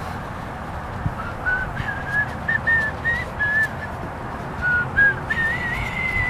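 A person whistling a tune: a run of short notes stepping up and down, then a longer note that rises near the end.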